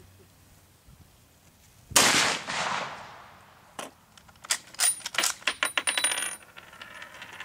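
A single shot from an M71/78 Dutch Beaumont-Vitali 11mm single-shot/repeating bolt-action rifle about two seconds in, ringing out for about a second. Then come a quick run of sharp metallic clicks as the bolt is worked and the spent brass case is ejected, clinking onto the table.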